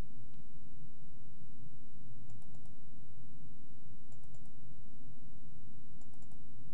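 A computer mouse double-clicked three times, about two seconds apart, opening folders one after another, over a steady low hum.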